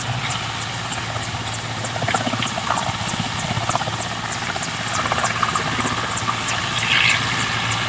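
Helicopter running, a steady drone with a fast, even pulse.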